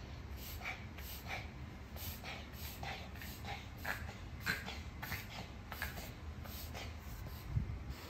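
Small white spitz dog coughing over and over in short, rapid coughs, about two to three a second, the dry cough from deep in the chest that the vet confirmed as kennel cough. A louder thump comes near the end.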